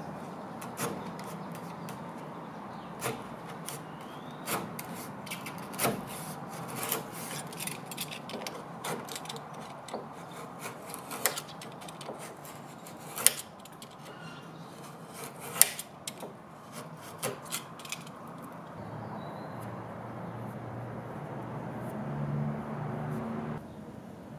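Hook-bladed utility knife scraping and gouging along a crack in a wooden panel, cleaning out the split for filling: irregular rasping strokes with scattered sharp clicks, two of them louder than the rest. Near the end the scraping stops and a low hum rises.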